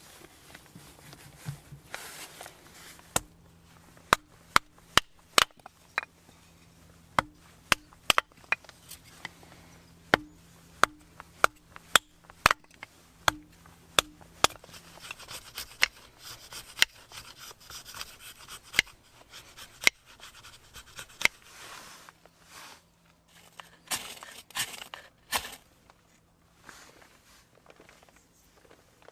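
Hand work on wood: a run of sharp knocks, some quick and some a second or more apart, then a longer stretch of scraping and rubbing with a few more knocks.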